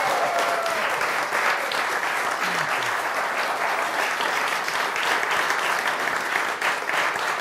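Studio audience applauding steadily, a crowd of people clapping their hands.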